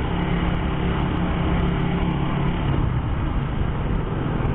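Motorcycle engine running steadily while riding, over an even rush of wind and road noise.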